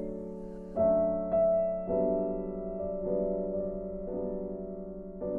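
Background piano music: slow, held chords, with a new one struck every second or so.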